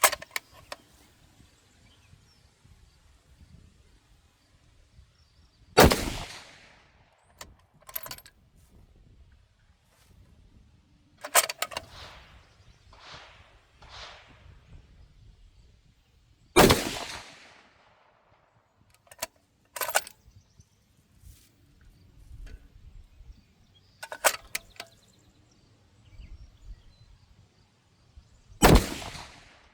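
Three rifle shots from a 25GT rifle fitted with a Preece Precision Stinger 5-port muzzle brake, about ten to twelve seconds apart. Each is a sudden crack with an echo trailing off after it. Lighter metallic clicks and clacks come between the shots.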